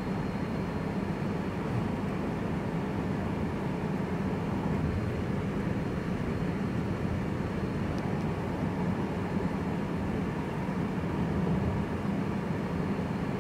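Steady engine and tyre noise of a car cruising along a paved highway, heard from inside the cabin.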